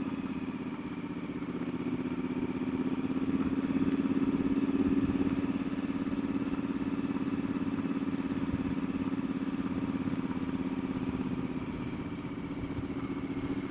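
Triumph Scrambler 1200's parallel-twin engine running steadily under way, heard from the rider's seat. The engine note rises a little about three seconds in and eases back after about six.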